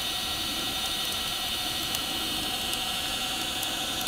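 Live steam miniature locomotive giving off a steady hiss of steam, with a faint steady tone underneath and a few light clicks.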